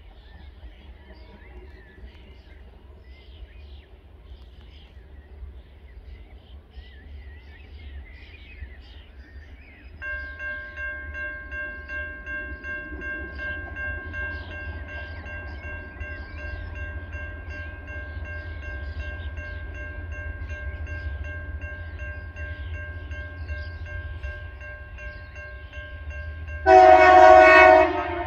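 Birds chirp over a faint low rumble. About ten seconds in, a level crossing's warning bell starts up with a steady ringing tone, while the low diesel rumble of the approaching TasRail TR class locomotive slowly grows. Near the end the locomotive's horn sounds once for about a second, much louder than everything else.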